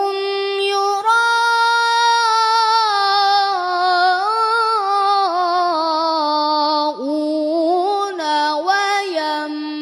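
Melodic Quran recitation by a single high voice: the words 'alladhina hum' drawn out into long held, ornamented notes that waver and slide, with a quick dip in pitch about seven seconds in, before 'yura'un' near the end.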